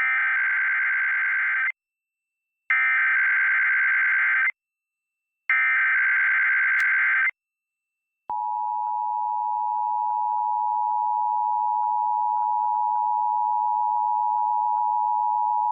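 Emergency Alert System SAME header: three harsh bursts of digital data tones, each just under two seconds long with about a second's gap between them, encoding a Required Monthly Test. About eight seconds in, the steady two-tone EAS attention signal (853 and 960 Hz) starts.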